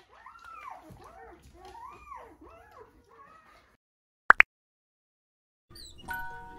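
A newborn puppy crying in short squeals that rise and fall, about one a second, stopping after about three and a half seconds. Two sharp, very loud clicks follow, and chiming music with glockenspiel-like notes starts near the end.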